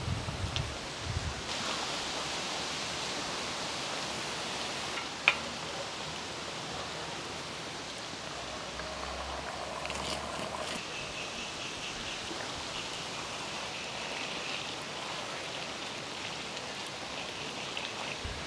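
Steady sizzling hiss of chicken masala cooking in an iron kadai over a wood fire, with a single sharp clack about five seconds in.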